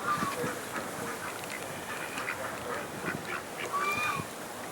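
A flock of birds calling: many short overlapping calls over a steady background hiss, with one longer call near the end.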